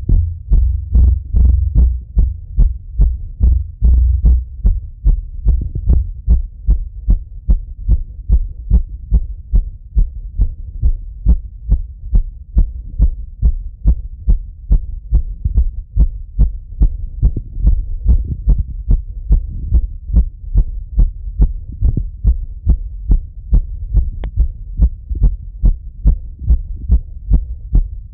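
A man's heartbeat heard through a Littmann stethoscope on the chest: fast, even thumps about two a second, the heart still beating quickly in recovery after running.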